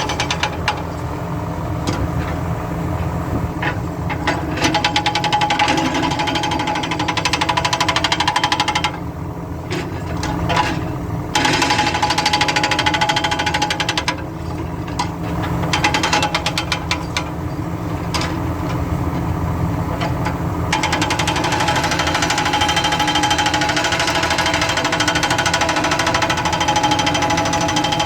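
Excavator-mounted hydraulic breaker hammering with rapid blows, over the excavator's steady diesel engine. The hammering stops briefly a few times around the middle, then runs on steadily.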